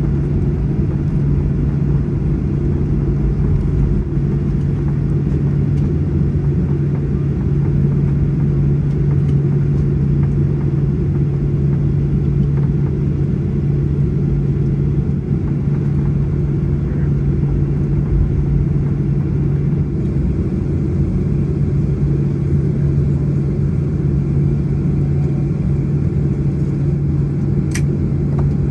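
Cabin noise of a Boeing 737-800 taxiing with its CFM56 engines at idle: a steady low rumble with a constant hum. A brief sharp click comes near the end.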